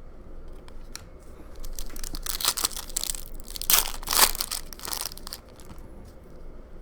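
Trading-card pack wrapper being torn open and crumpled: a run of crackling, crinkling rustles, loudest a little past the middle, then dying away.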